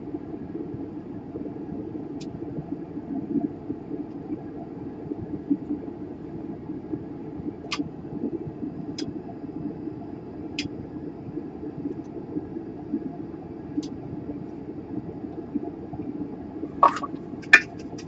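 Steady low mechanical hum from bench equipment while solder is cleared from a laptop motherboard's DC power-jack joints with a desoldering tool, with a few faint sharp ticks. Near the end come a couple of louder clacks as the tool is set back in its stand.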